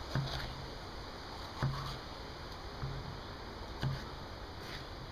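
Knife cutting through a yellow bell pepper onto a wooden cutting board: a few separate knocks of the blade on the board, a second or two apart, over a steady background hiss.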